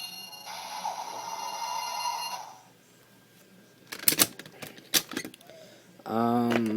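A Kamen Rider W GaiaMemory toy belt plays electronic transformation music through its small plastic speaker, which cuts off about two and a half seconds in. Sharp plastic clicks follow a second or so later as the memories are taken out and swapped. A short voice comes in near the end.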